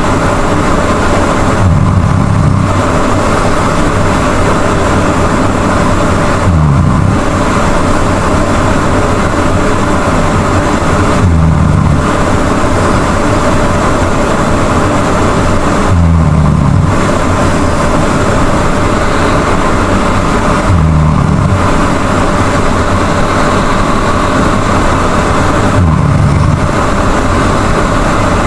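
A person snoring loudly and regularly: a low, rattling snore about every five seconds, six in all, over a steady loud hiss.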